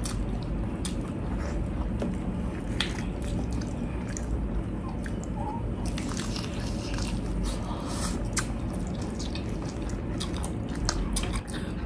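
Close-up eating sounds: fried chicken dipped in sauce being bitten and chewed, with wet mouth noises and many small clicks over steady low background noise. A denser crunchy bite comes about six seconds in.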